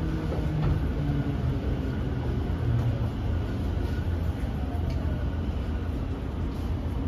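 Tokyo Metro 05 series electric train running, heard from inside the passenger car: a steady low rumble of wheels and motors, with faint motor tones sliding in pitch.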